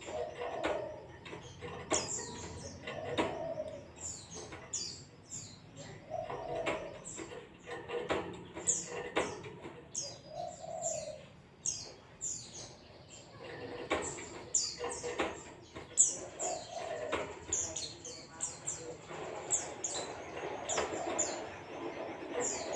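White-eye (Zosterops, 'pleci') singing a long run of quick, high, downward-sliding chirps with hardly a pause. Lower, rounder calls come in every couple of seconds, and sharp clicks are scattered through.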